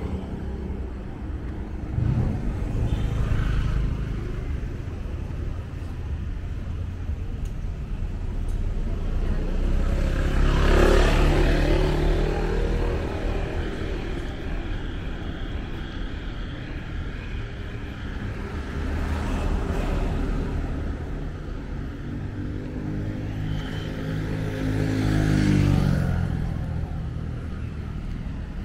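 City street traffic: a steady low rumble with several vehicles passing close by, the loudest about ten seconds in and others near twenty and twenty-five seconds in, their engine note sliding in pitch as they go by.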